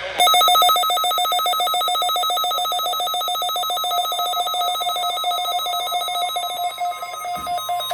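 Weather alert radio receiver's alarm going off: a loud, rapidly pulsing electronic trill that starts suddenly. It marks the receiver reacting to the NOAA Weather Radio warning alarm tone sent during a required weekly test.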